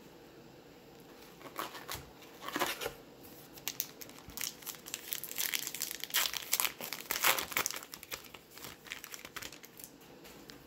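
Plastic wrapper of a trading-card pack being torn open and crumpled: a run of irregular crinkles that is busiest and loudest in the middle, then dies away near the end.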